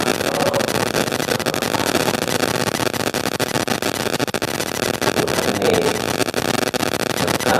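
Loud, steady hiss-like noise with a man's voice faint and mostly buried beneath it.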